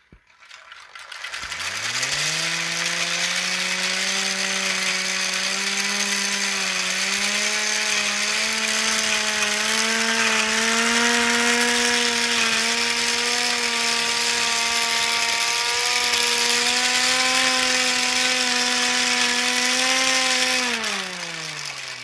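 Small 3D-printed, hand-cranked air raid siren with plastic step-up gears spinning up. Its wail rises in pitch about a second in, holds low and steady with small rises over a loud whir of gears and rotor, then falls away near the end. The pitch stays low because the hand-cranked gearing only reaches about 3000 RPM, so the siren never peaks.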